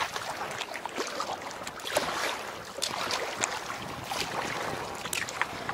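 Kayak paddle strokes in choppy lake water: irregular splashes and drips from the paddle blades and water slapping the hull.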